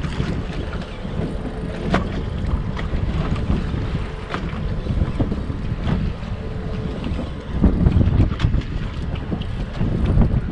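Wind buffeting the microphone in an uneven low rumble, over water sloshing against a fishing boat's hull. A few sharp clicks stand out.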